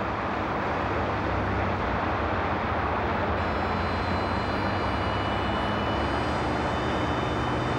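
Steady drone of an aircraft engine heard from on board, with faint high whining tones joining about three seconds in.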